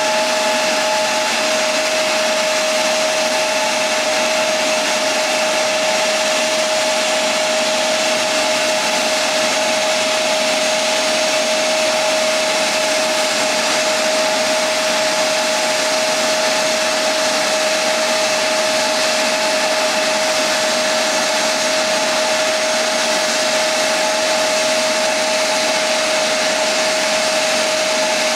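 Embraer E170's General Electric CF34-8E turbofan engines running at idle: a steady jet whine, one held tone over a loud hiss.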